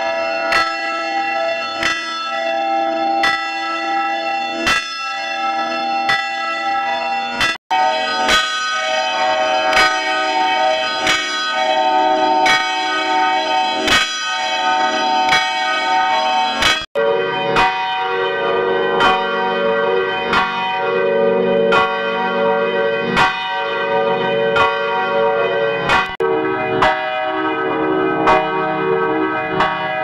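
A church bell swinging and struck over and over by its clapper, each stroke ringing into the next, the recording altered with audio effects. The sound drops out briefly twice and comes back each time with a changed tone, much deeper in the last part.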